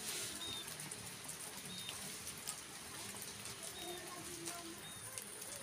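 Light rain pattering, with scattered ticks of single drops, while a bird gives a short high chirp every second or two.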